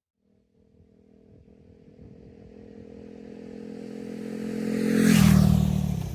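KTM 390 Duke's single-cylinder engine through a LeoVince GP Corsa Evo slip-on exhaust with no dB killer, approaching at a steady speed and passing by. It grows louder for about five seconds, peaks, then drops in pitch as it goes past.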